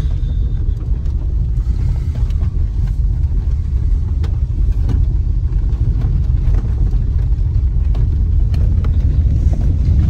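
Steady low rumble of a car driving over a freshly laid crushed-stone road, heard inside the cabin, with scattered faint clicks.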